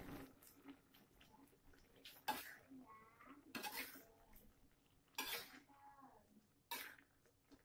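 Metal spatula scraping and knocking against a wok as chicken pieces are stirred in a little liquid, in four short, separate strokes.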